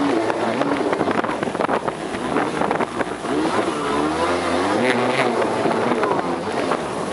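Jet ski engine running at speed, its pitch wavering up and down, with wind buffeting the microphone and water rushing past.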